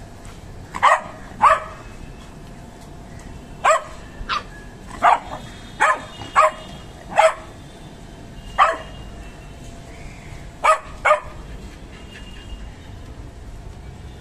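A dog barking: about eleven short, sharp barks spaced a second or so apart, some in quick pairs, over a steady low background hum.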